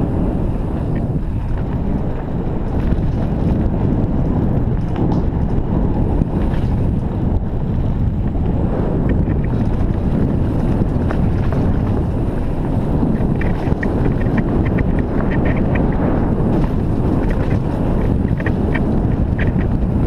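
Wind buffeting the microphone of a mountain-bike action camera, mixed with the rumble of tyres over a dry dirt trail on a downhill run. Spells of rapid ticking come in about thirteen seconds in and again near the end.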